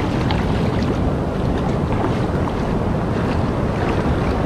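Ocean surf washing around shallow water on the beach, with wind noise on the microphone: a steady rush, heaviest in the low end.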